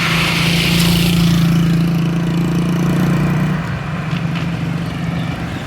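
Road traffic: a nearby motor vehicle's engine running with a steady low hum, strong for about three and a half seconds and then dropping away, with a hiss of passing traffic at the start.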